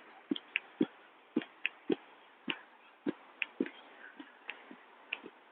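Footsteps in snow at a steady walking pace, about two steps a second.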